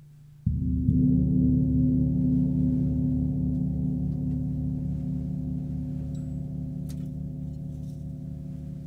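A large gong with many small raised bosses struck with a soft mallet, once about half a second in and again just after, then left ringing: a deep, wavering hum that fades slowly.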